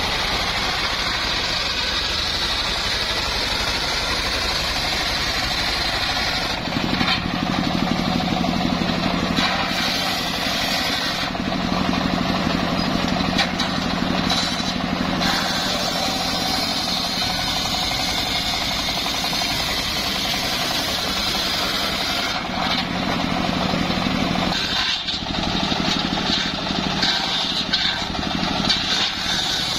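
Homemade engine-driven circular saw bench ripping an old mahogany log, the spinning blade giving a steady high whine over the running machine. Twice a lower, heavier drone comes in and holds for several seconds.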